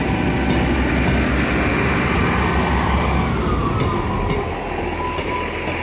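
Diesel train running at the level crossing: a steady, loud, deep rumble. A tone in it slides down about halfway through and then holds steady.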